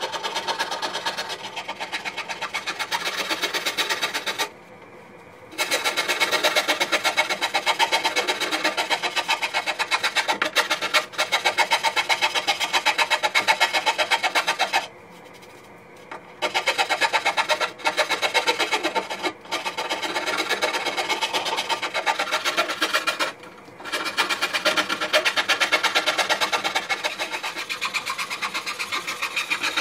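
Long-handled hand scraper rasping in quick repeated strokes along the edge of a zelkova slab, scraping rotten wood away down to sound timber. The scraping stops briefly three times.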